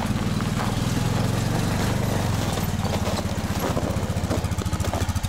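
Arctic Cat ATV engine running at low speed as it pulls a utility trailer over snow: a steady low engine drone, its beat growing more distinct near the end.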